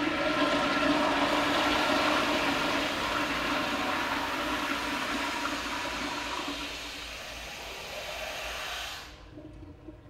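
Toilet flushing: a loud rush of water that slowly tapers off and stops about nine seconds in.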